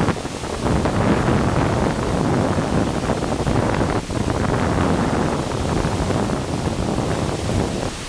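A heavy torrent of water plunging over a drop close by: a loud, deep, steady rush of falling water, dipping briefly about four seconds in.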